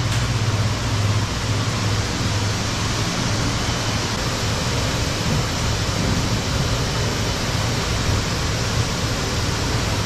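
Steady rushing noise of running water and aeration at live-fish tanks, over a continuous low pump hum, with no distinct events.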